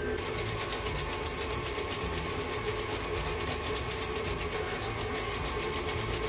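Tilt-head stand mixer running steadily, whipping butter and sweetener, with a fast, even scratching from a hand-crank flour sifter being turned, several strokes a second.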